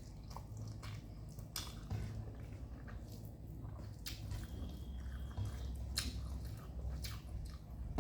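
Someone eating rice with dal: scattered faint wet squishes and small clicks of mixing and chewing, over a low steady hum.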